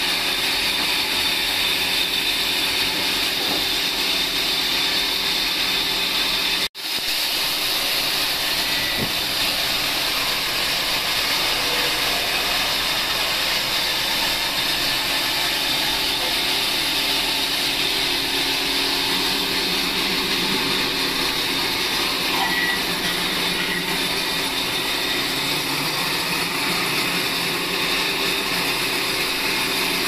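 A large electric band saw running steadily, a high whine over hiss, while ripping a log of timber into planks. The sound cuts out for an instant after about seven seconds.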